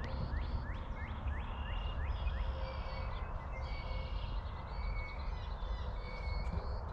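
Birds singing: a quick run of down-slurred chirps in the first couple of seconds, then short, higher whistled notes, over a steady low rumble.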